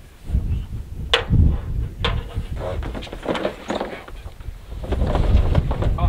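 A combine header's rubber draper belt being worked loose and dragged off the header by hand. Two sharp knocks about one and two seconds in are followed by scraping and rustling. Low wind rumble on the microphone grows louder near the end.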